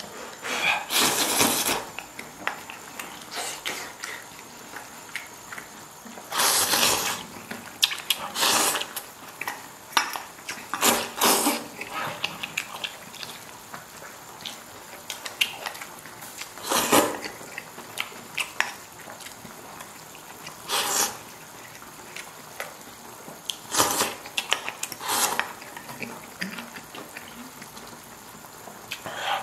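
A person slurping noodles and pickled cabbage from hot pot broth and chewing, with chopsticks tapping a stainless steel bowl. There are about eight short, loud slurps spread every few seconds.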